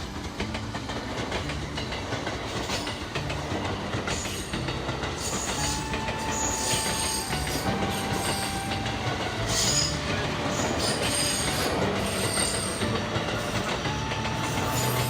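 Train passing close by, its wheels clattering over the rail joints and growing louder. Brief high-pitched squeals come at intervals, and whining tones change pitch in steps.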